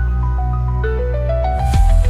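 Background music: a bright mallet-like melody over a sustained bass, with a swell near the end leading into a steady drum beat.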